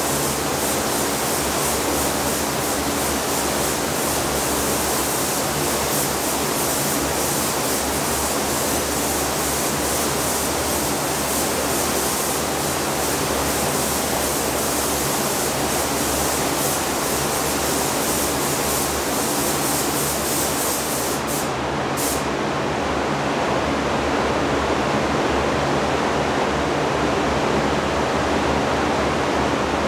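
Hiss of a paint spray gun spraying a coating onto a plastic grille over the steady air noise of a paint spray booth. The gun's hiss stops about 21 seconds in, leaving only the steady booth airflow.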